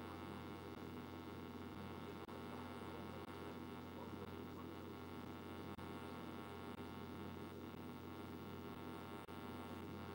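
A steady, unchanging hum made of many steady tones, with a faint click every few seconds.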